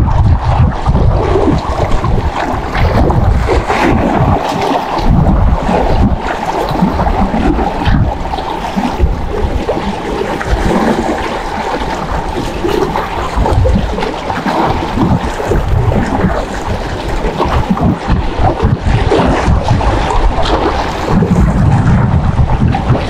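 Wind buffeting the microphone, a fluctuating rumble over the wash of small waves against a rock wall.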